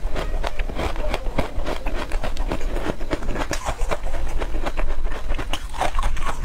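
Close-up chewing of a buckwheat snowflake crisp, a rapid, irregular run of small crunches and mouth clicks.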